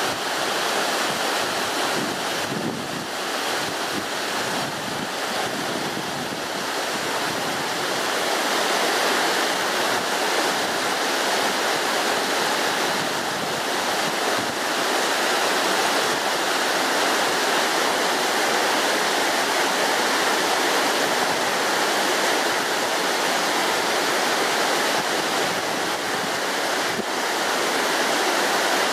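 Mountain torrent and waterfall rushing steadily: a continuous, even noise of falling and tumbling water over rocks, a little louder after about eight seconds.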